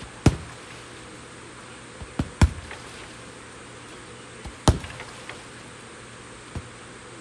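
Strikes landing on an Everlast heavy bag: a thud just after the start, a quick pair about two seconds in, another about two seconds later, and a fainter one near the end.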